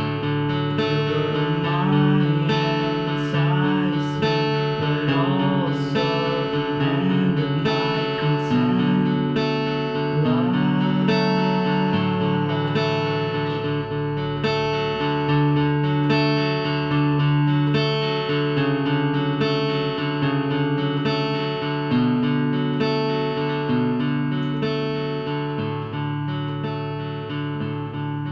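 Solo acoustic guitar playing an instrumental passage, ringing chords with a new pluck or strum about once a second.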